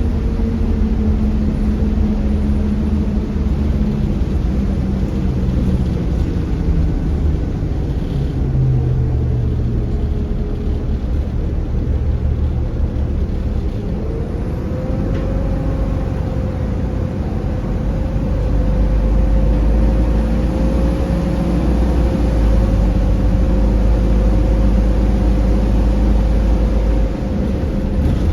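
Optare Solo M900 bus under way, its engine note falling over the first several seconds, then rising again about halfway through as it pulls on, with a heavy low rumble in the latter part.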